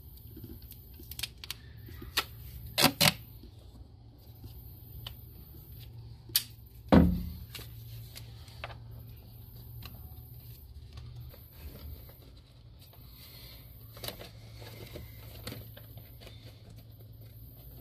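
Hard plastic intake parts clicking and knocking against the plastic airbox as they are fitted by hand, with a quick double knock about three seconds in and a heavier thump about seven seconds in, over a low steady hum.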